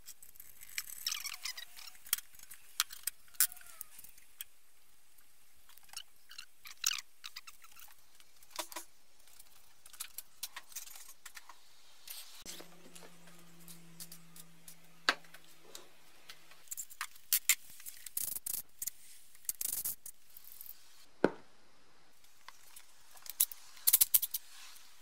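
Hand tools and steel clicking, clanking and scraping irregularly against a BMW E30 limited-slip differential casing, with a steady low hum lasting about four seconds a little past the middle.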